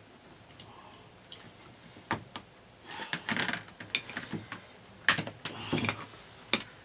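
Plastic housing halves of an electric drill being pried and pulled apart by hand: a run of sharp clicks, snaps and scraping as the case comes loose, the loudest snap about five seconds in.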